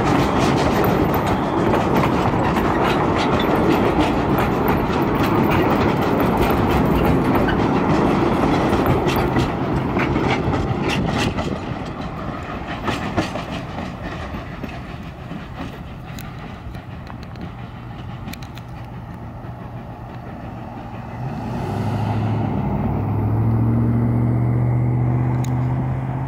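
Narrow-gauge passenger coaches of the Cumbres & Toltec steam train rolling past, steel wheels clicking and clattering over the rails and road crossing. The sound fades about halfway through as the train draws away, and a low steady hum grows louder about five seconds before the end.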